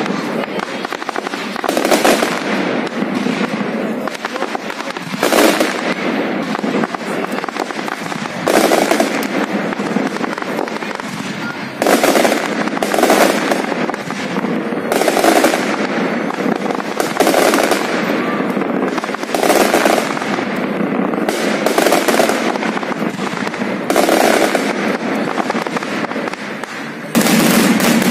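Fireworks display at close range: a steady series of loud shell bursts, about one every two seconds, with continuous noise from the display between them.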